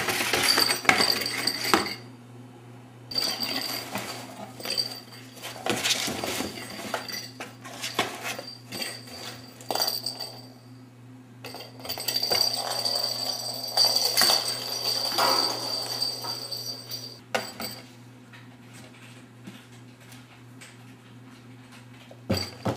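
Kittens batting around inside a cardboard soda-can carton on a wooden floor: spells of scraping, knocking and light clattering with a high ringing note, dying down after about 17 seconds. A steady low hum runs underneath.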